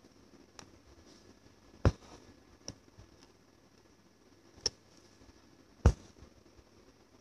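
Sharp ticks and taps from handling an embroidery needle and thread against fabric, five in all, the loudest about two seconds in and near the end, over a faint steady room hum.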